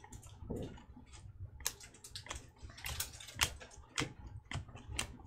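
Topps Chrome baseball cards being flipped one behind another in the hands: short, irregular clicks and slides of stiff card on card, about three a second.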